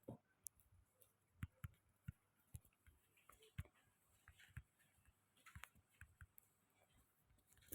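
Near silence: room tone with faint, irregularly spaced clicks and taps, about one every half second to second.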